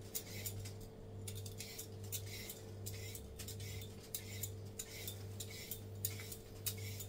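A cucumber being peeled, with short scraping strokes of the blade along the skin, about two or three a second, over a steady low hum.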